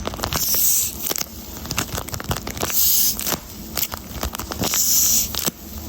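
Paper squishy squeezed in the hand three times, each squeeze a crinkling hiss, with small crackles in between.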